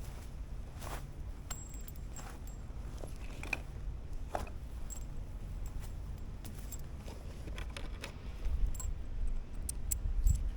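Scattered light clicks and rustles of small objects being handled, over a low steady rumble, with a couple of dull thumps near the end.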